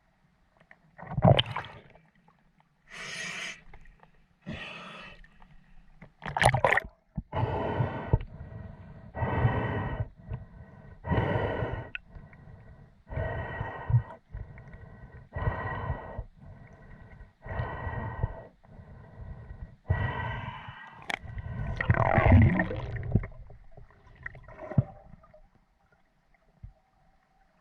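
A spearfisher breathing hard through a snorkel, in and out about every one and a half to two seconds, each breath rasping and gurgling in the tube.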